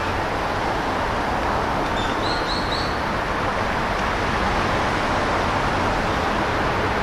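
Steady rushing outdoor background noise, with three quick high chirps in a row just over two seconds in.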